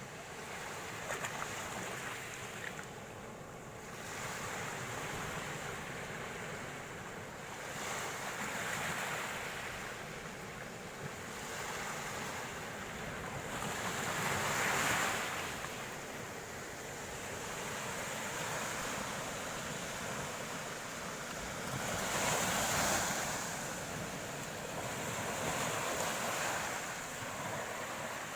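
Sea waves breaking and washing onto the shore. The sound swells and eases every few seconds, with two louder breaks, one about halfway through and one about two-thirds through.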